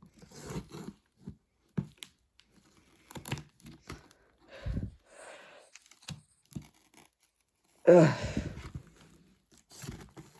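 Cardboard shipping box being opened by hand: tape and cardboard tearing and scraping in irregular bursts, with a few knocks, the loudest rip about eight seconds in.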